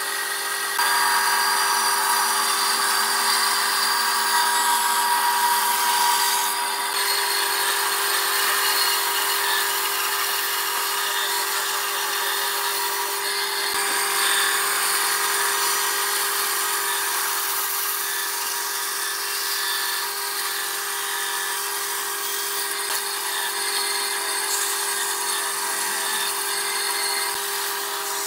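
Band saw running and cutting curves through a thick block of wood: a steady motor hum under the hiss of the blade in the cut, a little louder in the first few seconds.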